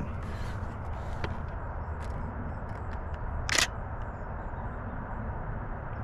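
A camera shutter clicks once, sharply, about three and a half seconds in, with a fainter click about a second in. Under it runs a steady low rumble.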